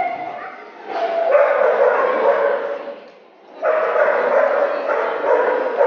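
Dogs barking again and again, mixed with people talking, with a short lull about three seconds in.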